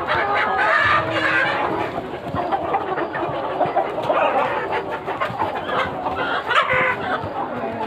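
A large flock of country chickens (nattu koli), hens and roosters, clucking and calling over one another without a break.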